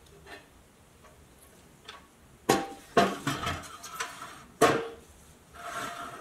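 Pressed-steel shell of a 1962 Tonka toy camper being taken apart by hand, its roof lifted off and the body moved: three sharp metallic clanks with a short ring and a few lighter knocks, then a brief metal scrape near the end.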